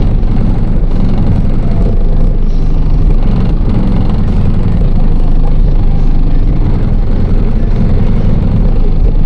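Car audio subwoofers playing bass-heavy music at very high volume, the deep bass dominating.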